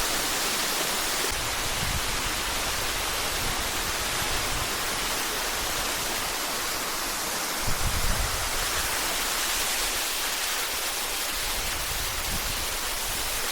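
Close-up rush of a tall waterfall, a steady loud hiss of falling water, with a brief low rumble about eight seconds in.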